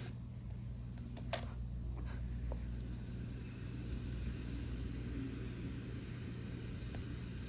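A puppy's paw tapping a laptop keyboard: a sharp click just over a second in and a few fainter taps after, over a steady low hum.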